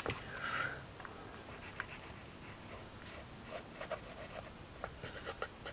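Quiet handling noise: faint small clicks and scrapes as grey card pieces and a hot glue gun are worked by hand, with hot glue being laid along the card.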